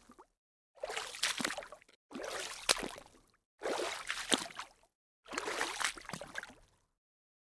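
Water splashing in four separate splashes, each sharp at the start and dying away over about a second, repeating roughly every second and a half, then stopping near the end.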